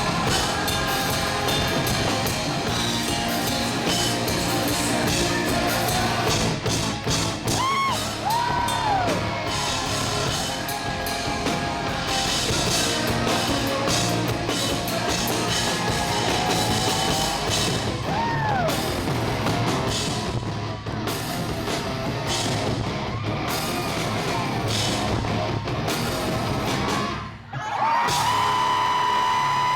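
Live rock band playing loudly with a driving drum kit. Near the end the sound dips briefly, then a long note is held.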